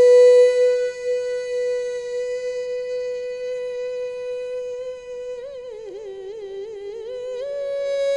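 A male naat reciter sings one long held note, then breaks into a wavering run of quick ornaments about five seconds in and settles onto a slightly higher held note near the end.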